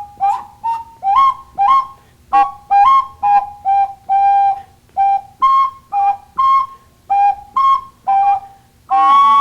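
Clay ocarina played in short, breathy-pure notes, about two a second, stepping back and forth between two pitches with a slight upward scoop at the start of each note. Near the end a long held note begins.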